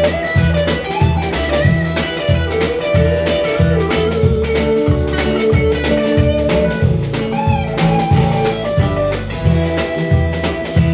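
Blues band playing an instrumental break: a lead guitar line with bent notes over bass and a drum kit keeping a steady beat.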